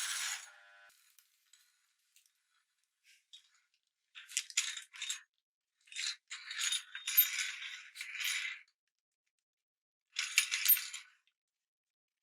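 Three bursts of dry crackling and crunching, with pauses between them: a silicone pop-it toy being crushed in a meat grinder.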